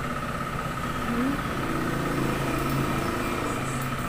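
Steady mechanical hum with a thin high whine, joined about a second and a half in by a lower, engine-like drone.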